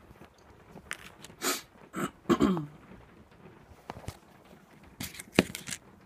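Handling noise from a phone camera being picked up and repositioned: a series of knocks, taps and rustles, loudest about two and a half seconds in and again just after five seconds. A brief sound that falls in pitch comes with the loud cluster about two and a half seconds in.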